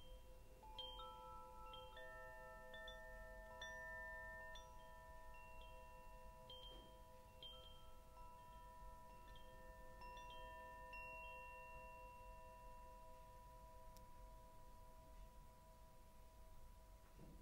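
Faint chimes ringing softly: light high strikes come every second or so, over several long tones that ring on.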